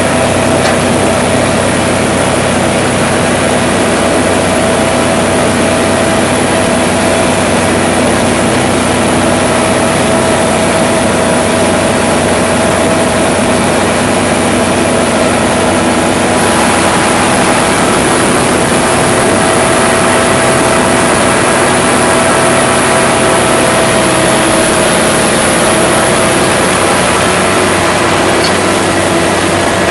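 Tractor engine and potato harvester running steadily at work, a continuous loud drone with a steady whine, while the harvester's elevator conveys potatoes into a trailer alongside.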